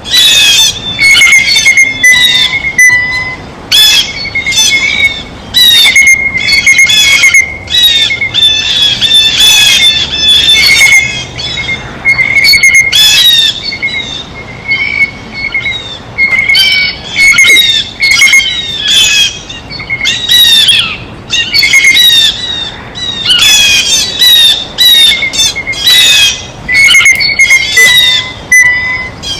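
Blue jays calling over and over, harsh rasping calls mixed with clear whistled notes at one steady pitch, coming in quick runs with short gaps between.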